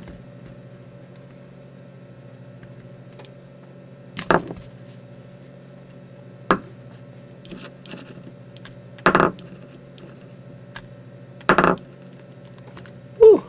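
About five short, sharp knocks and clacks spread a couple of seconds apart as a one-inch neodymium sphere magnet and a hot-glued wire coil snap together and are set down on a tabletop, over a steady low hum.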